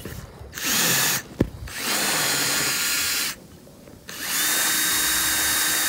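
Ryobi cordless drill running in bursts, spinning a paint-mixer attachment dipped in the water as a makeshift boat propeller. A short burst, a longer one, then a steady run with a high whine from about four seconds in, with a knock between the first two bursts.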